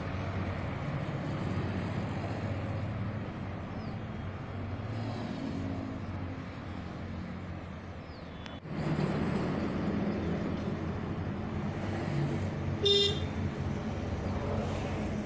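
Road traffic: vehicle engines running steadily, getting louder about halfway through, with one short horn toot near the end.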